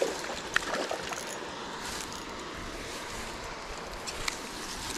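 Hooked trout splashing briefly at the surface, then handling noise and a few sharp clicks as it is landed on a grassy bank, over steady outdoor noise.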